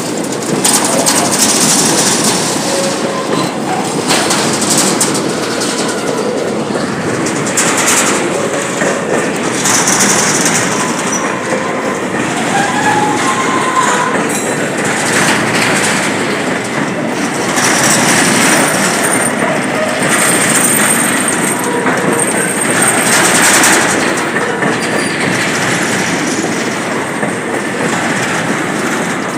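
Train cars rolling past with a steady rumble and the clickety-clack of wheels over rail joints, with thin high wheel squeals now and then.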